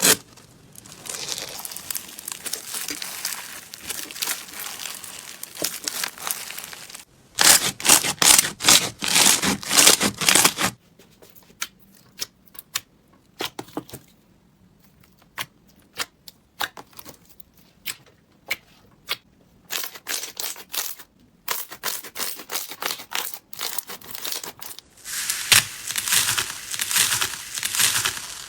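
Crunchy slime being squeezed and pressed by hand, giving runs of dense crackling and popping, with a quieter stretch of scattered clicks in the middle.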